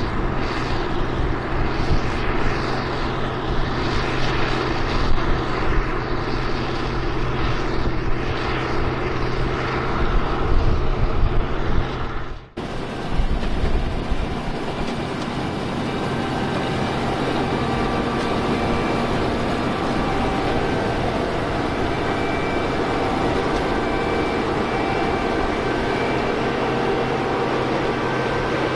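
Steady drone of an International 1460 Axial Flow combine harvester running in the field. About twelve seconds in the sound dips sharply and cuts to another, smoother stretch of steady machine drone.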